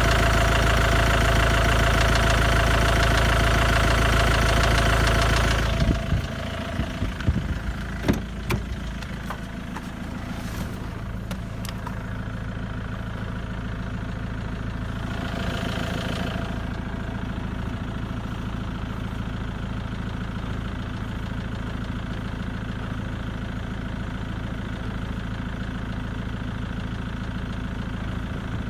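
Ford Mondeo engine running steadily and loud for about the first six seconds, then dropping suddenly to a quieter steady idle. A handful of sharp clicks come through between about six and twelve seconds in.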